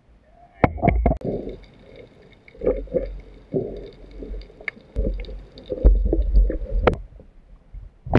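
Water sloshing and gurgling in irregular surges, with a few sharp knocks among them.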